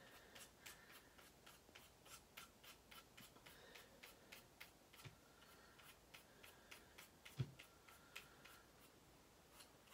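Faint, quick scraping strokes, about three a second, as a scissor blade shaves powder off a soft pastel stick. A single soft thump about seven and a half seconds in.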